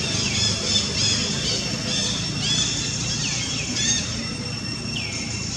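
A run of short, high squeaky calls, each falling in pitch, coming quickly in the first four seconds and then easing off, over a steady high-pitched whine.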